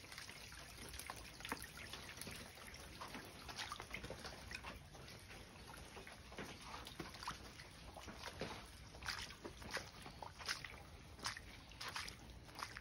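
Rainwater runoff trickling and splashing faintly over gravel and pavement. In the second half come footsteps on wet pavement, as short scuffs and splashes.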